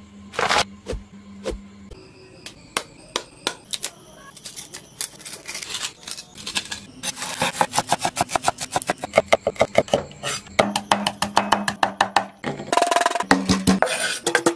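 A cleaver chopping green onions on a wooden cutting board: a few scattered knocks at first, then a fast, even run of chops for several seconds.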